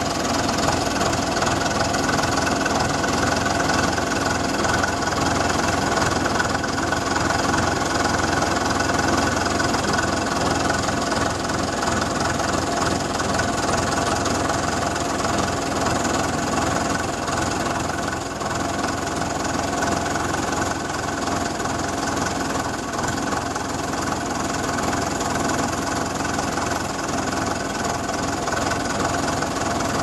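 Fordson New Performance Super Major's three-cylinder diesel engine running steadily under load, pulling a plough.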